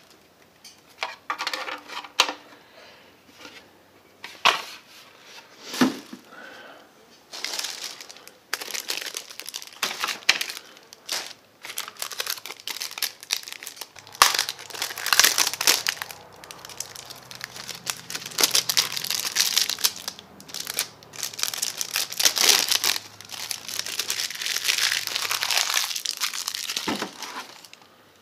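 Thin clear plastic cover lenses for a welding helmet being handled and unwrapped, crinkling and rustling in long irregular stretches. It opens with a few separate clicks and taps.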